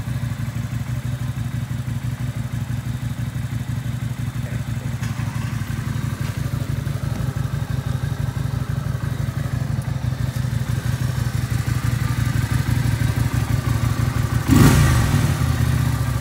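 Motorcycle engine idling with a steady low, pulsing note. Near the end there is a sudden loud burst that falls away in pitch.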